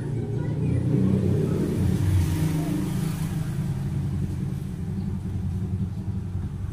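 Steady low engine-like rumble, a little louder from about a second in; the snips of the nail nipper do not stand out from it.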